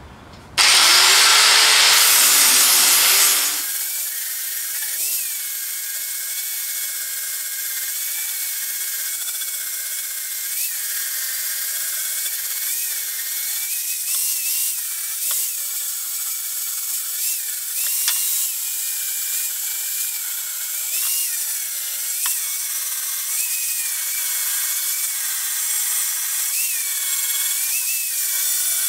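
Electric grinder grinding down the weld along the edge of a welded metal clutch cover. It starts loud about half a second in, then after about three seconds settles to a steady whine that wavers in pitch as it works the metal.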